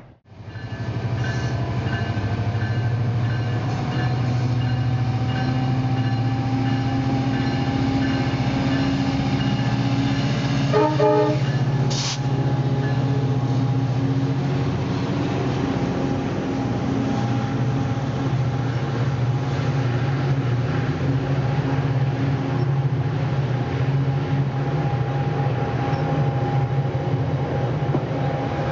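Diesel passenger locomotive running steadily under load, a deep engine hum with a faint whine rising slowly in pitch. About eleven seconds in there is a brief horn sound, followed by a single sharp clank.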